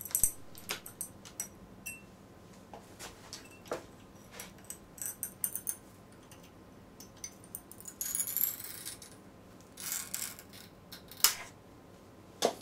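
Metal hand tools, a flat pry tool and then pliers, clicking and scraping against the metal lid of a hybrid IC package as the lid is pried up and pulled off. Scattered sharp metallic clicks with a brief ring, and longer scrapes about eight and ten seconds in.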